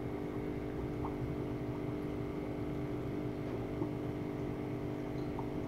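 Steady mechanical hum with several held tones and a low rumble, at an even level throughout, with a couple of faint ticks.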